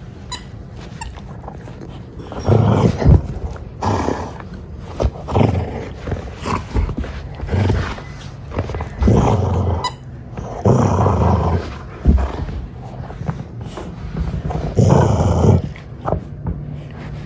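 Treeing walker coonhound growling in play with a stuffed toy in its mouth: a string of rough growls, each about a second long, starting a couple of seconds in and repeating every second or two.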